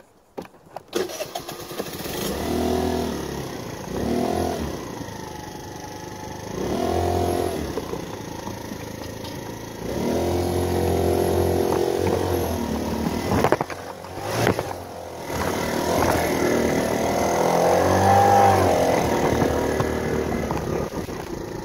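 GY6 50cc four-stroke scooter engine of a Wolf W1 being ridden, its note rising and falling in about five throttle surges. Two sharp pops come a little past the middle.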